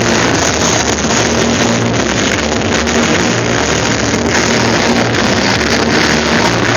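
Loud, distorted rock music from the fireworks show's loudspeakers, with a steady rushing noise over it and bass notes changing every second or so.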